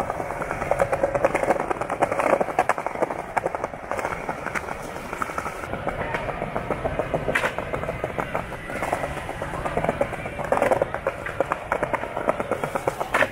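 Skateboards rolling over hard pavement, a rapid patter of clicks from the wheels, with a sharp board clack about seven seconds in and another at the end.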